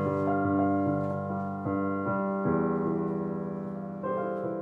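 Digital piano played in slow, sustained chords, with a new chord about two and a half seconds in and a few more notes near the end.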